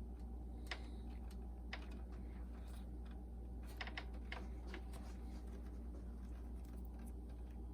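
Faint, scattered small plastic clicks and taps as wire connectors and cables inside a boombox are handled and fitted, about one every second, over a steady low hum.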